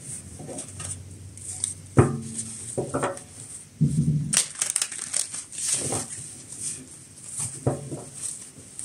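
A tarot deck being shuffled by hand: irregular rustling and crackling of the cards, with sharp taps as the piles meet. The loudest tap comes about two seconds in.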